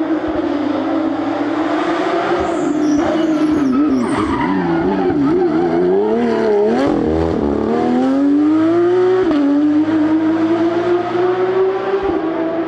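Porsche 992 Rally GT rally car's engine running hard: the revs waver up and down mid-way, then climb and drop sharply just after nine seconds in at a gear change before holding steady again.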